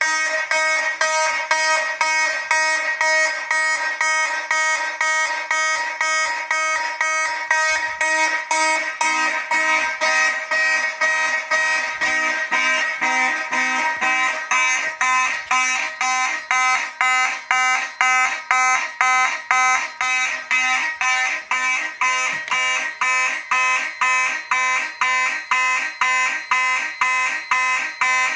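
Several fire alarm horns on a test system sound together in march-time code, a harsh multi-tone blare pulsing about twice a second. It starts suddenly: the general alarm has been set off from a manual pull station.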